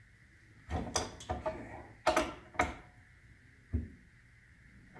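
Irregular metallic clicks and clanks, about half a dozen, some with a short ring, as a tie rod is turned to thread it onto a new tie rod end clamped in a vise. The threads are still stiff.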